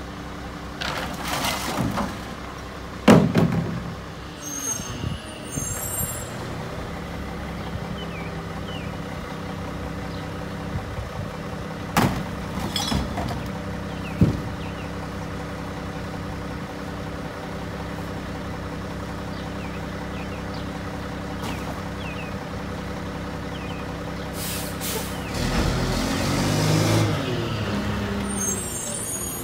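Front-loading garbage truck's diesel engine idling steadily, with plastic bins knocking against the front carry can as they are emptied into it and a few short air-brake hisses. Near the end the engine revs up as the truck pulls away.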